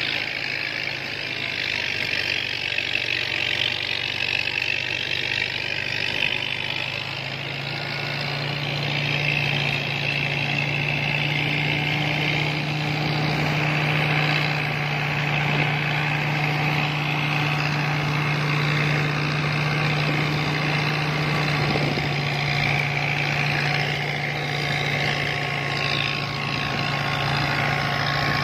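New Holland 640 tractor engine running steadily under load, driving a PTO thresher: a constant low hum with the rushing whir of the threshing drum and blown straw over it. The hum grows stronger about seven seconds in.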